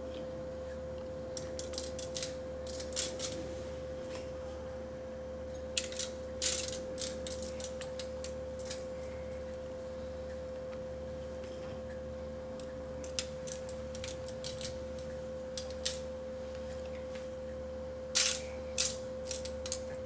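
Hands rubbing a spice mix onto a raw steak in a foil-lined aluminium pan: scattered crinkles and clicks in four short clusters, the loudest about six seconds in and near the end, over a steady high tone.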